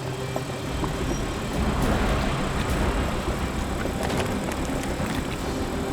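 Heavy diesel machinery running with a steady low rumble as a 50,000-pound excavator crawls out under winch tension from a tow truck.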